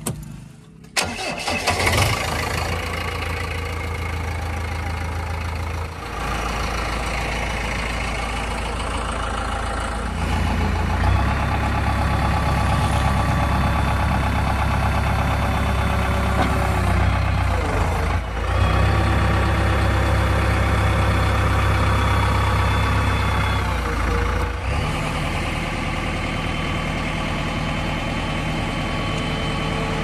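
Heavy diesel engine starting about a second in, then running, its speed and load stepping up and down several times.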